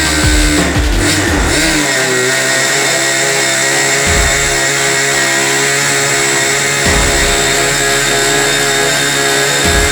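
Engine of a homemade Super Sport 40 RC model airplane running, its pitch sliding up and down for the first couple of seconds and then holding steady.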